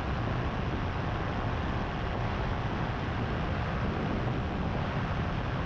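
Power2Fly RS paramotor in cruise flight: the engine and its repaired, rebalanced propeller drone steadily at constant power, mixed with wind rushing over the microphone.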